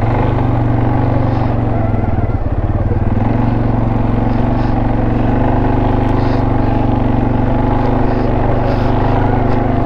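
CFMoto ATV engine running steadily while the quad is ridden along, its note wavering briefly about two to three seconds in.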